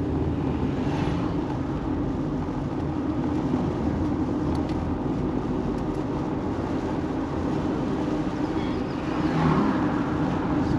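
A car on the move: steady engine and road noise, swelling briefly near the end.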